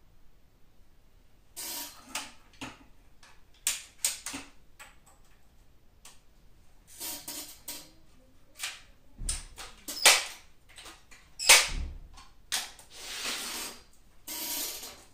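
Mechanical handling of an air rifle: irregular clicks and knocks with several longer rasping strokes, and two sharp, louder knocks near the middle.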